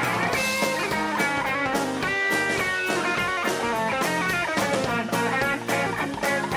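Live rock band playing: an electric guitar line over bass and drums with a steady beat.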